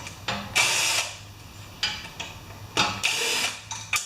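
Cordless drill backing out the valve cover bolts on a generator's small engine: several short bursts of spinning, the two longest about half a second each, with clicks of the bit and bolts in between.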